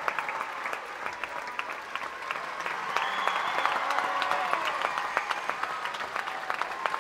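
A large theatre audience applauding steadily, the dense clapping of many hands.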